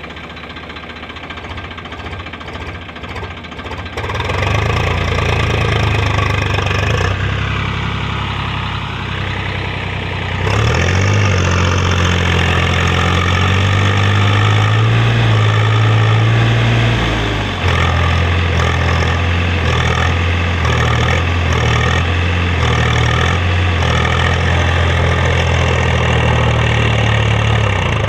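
Ace 550 DI tractor's diesel engine running while stuck in deep mud with a rotavator on. The engine is revved up about four seconds in and again at about ten seconds, and the engine note keeps shifting as the driver tries to work it free.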